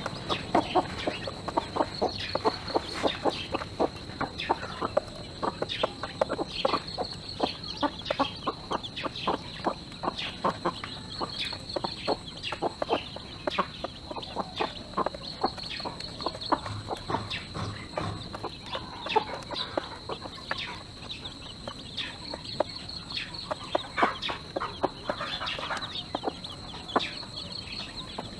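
A hen clucking while she and her chicks peck grain from a feeder tray, a rapid, irregular tapping of beaks.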